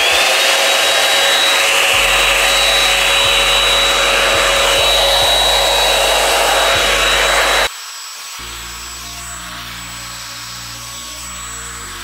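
Revlon One-Step hair dryer and styler running on its cool setting: the motor whines up to speed, then a steady, super loud rush of air with a high whine. About eight seconds in the sound drops sharply to a quieter hum, with background music underneath.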